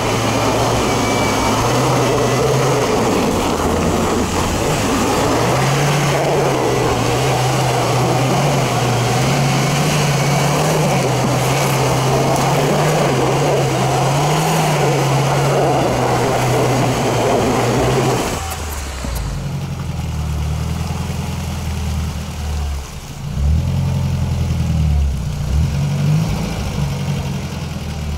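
Chevrolet Niva's engine running under load as the SUV is winched up a steep bank, a steady, slightly wavering hum under a loud rushing noise. About 18 seconds in this cuts abruptly to a lower, uneven engine note from a UAZ 4x4 standing in the river, rising and falling.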